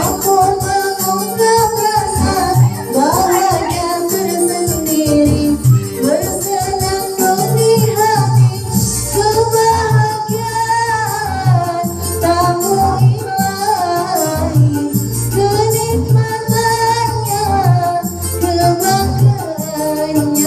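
A voice singing a melody over a music backing track with a steady beat and bass.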